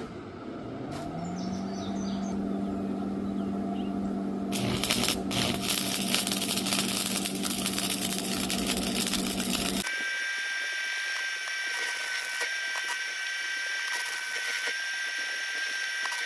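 Electric grinder motor spinning up to a steady whine, with a harsh hiss of metal being ground from about four and a half seconds in, on the welded-up teeth of a lawnmower transmission gear. Near ten seconds the sound cuts abruptly to a thinner, higher steady whine.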